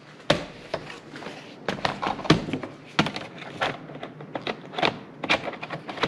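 Plastic laptop body handled on a wooden table: an irregular series of sharp clicks, taps and knocks as the closed laptop is turned over and its battery bay is lined up.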